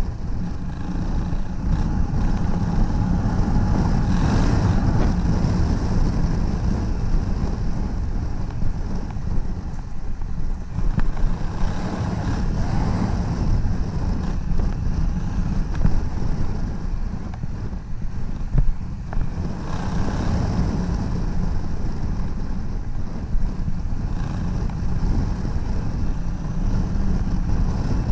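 Honda Africa Twin 1000's parallel-twin engine running steadily as the motorcycle rides along, with wind noise on the microphone.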